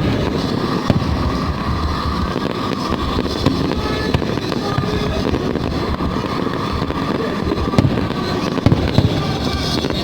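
Aerial fireworks display: a dense, continuous run of bursts and crackling, with louder single bangs now and then, a couple of them near the end.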